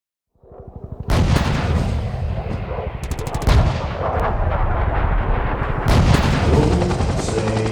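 Automatic weapons firing in rapid, sustained bursts, loud and continuous, beginning about half a second in. Musical tones start to come in near the end.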